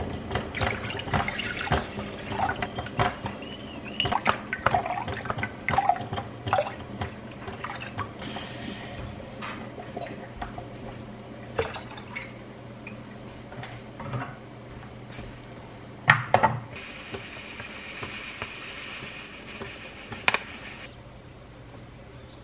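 Water poured from a glass measuring jug into a saucepan, splashing and gurgling for about eight seconds. After that come scattered light clicks and knocks, and a steady soft hiss for a few seconds near the end as sugar goes into the heating brine.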